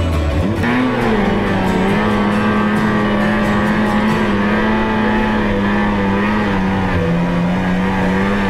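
Snowmobile engine running steadily at speed, an even high drone that comes in about half a second in and drops slightly in pitch near the end.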